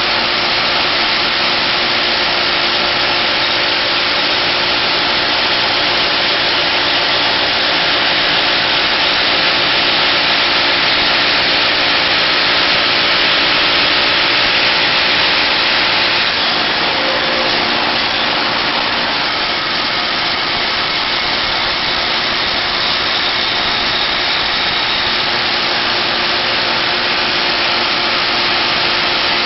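Engine of a working machine running steadily, with a small shift in its tone about sixteen seconds in.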